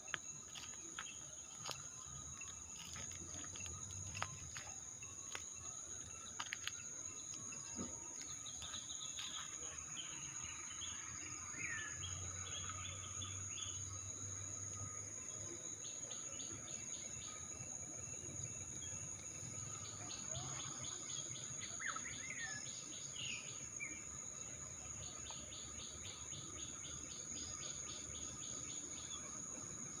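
A steady high-pitched insect drone, with birds calling over it: short falling whistles and several quick runs of repeated chirps.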